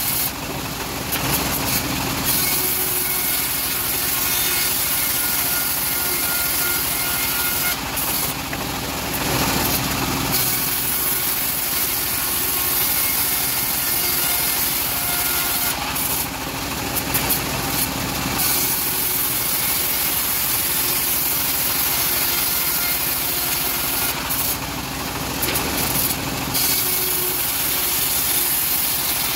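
Homemade bandsaw mill running and ripping teak boards, a steady machine drone with the cutting noise shifting about every eight seconds as boards pass through the blade.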